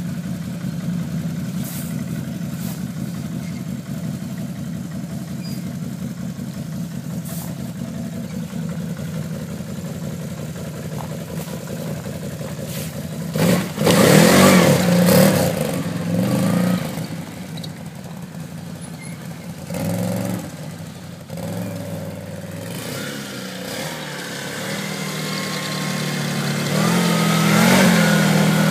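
Tracked ATV engines idling steadily, then one revs up loudly as it pulls away close by about halfway through. A shorter rise follows a few seconds later, and near the end another quad passes, its engine note climbing and getting louder.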